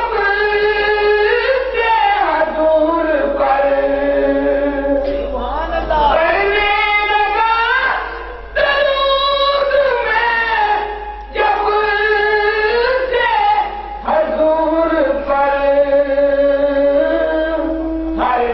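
A man singing a naat, an Islamic devotional poem, into a microphone. He holds long drawn-out lines whose pitch glides and wavers, with short breaths between phrases.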